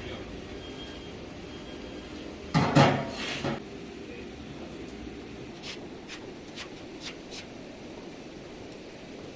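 A loud clatter, two hits close together, about two and a half seconds in, then five light sharp taps a few seconds later, over a low steady workshop background.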